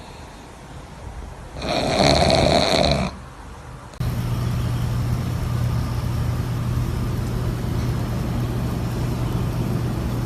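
A loud rasping, snore-like breath from a pet, lasting about a second and a half, two seconds in. From four seconds on, a steady low motor hum.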